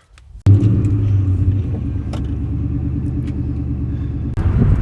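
2004 Mustang SVT Cobra's supercharged V8 running steadily, a low rumble that comes in suddenly about half a second in and gets louder again near the end.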